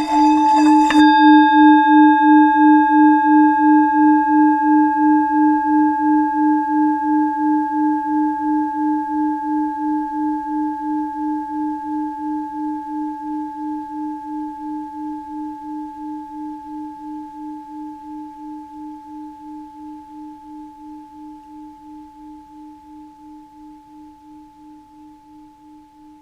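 Tibetan singing bowl ringing. A rough rubbing sound at the start stops about a second in. The bowl then sustains one low tone with fainter higher overtones, pulsing about twice a second and fading slowly.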